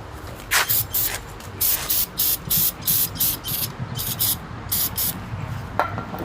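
Aerosol brake cleaner sprayed in a dozen or so short, hissing bursts, blasting dirt away from around a small engine's spark plug before the plug is taken out.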